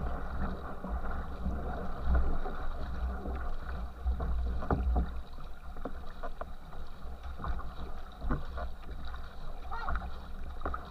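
Water rushing and churning in the wake at the stern of a racing canoe under way, with a steady low rumble and irregular splashes close by.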